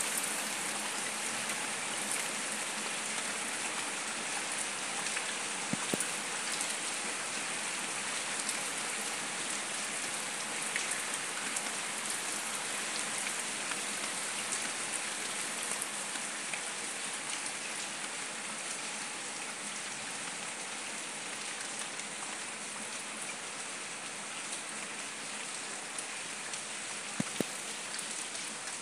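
Steady rain falling on wet paving stones and leaves, an even hiss of drops, with a few sharper ticks of single drops about six seconds in and near the end.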